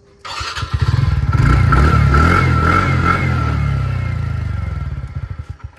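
TVS Ntorq 125 scooter's single-cylinder engine revved for its exhaust note: the pitch climbs over the first couple of seconds, holds, then eases off and fades away near the end, with a steady high whine running along with it.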